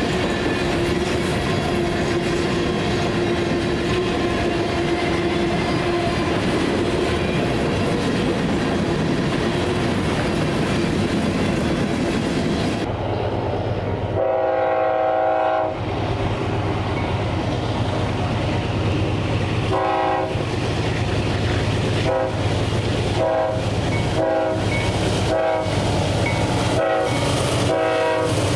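Loaded covered hopper cars of a freight train rolling past with wheels clacking over the rail joints. Then a diesel locomotive approaching, its engine drone growing, sounds its horn: one long blast, another a few seconds later, then a string of short blasts as a Kansas City Southern GE unit leads past.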